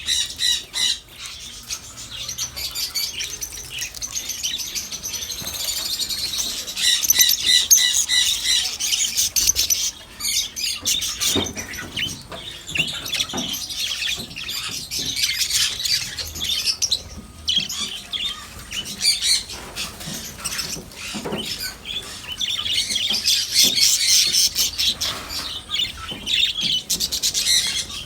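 Many small cage birds chirping and calling at once: a dense, continuous chatter of rapid, high, repeated notes.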